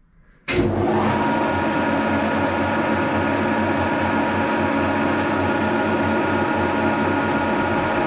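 1940s Brown & Sharpe horizontal milling machine with vertical head attachment starting up about half a second in, then running steadily through its gear and chain drive, spinning a Wohlhaupter boring and facing head at about 250 rpm. A steady mechanical drone with a few steady tones in it.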